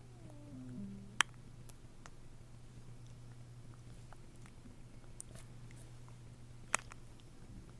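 A newborn baby's brief whimper that falls in pitch, then quiet small mouth sounds, over a steady low hum. Two sharp clicks stand out, one about a second in and one near the end.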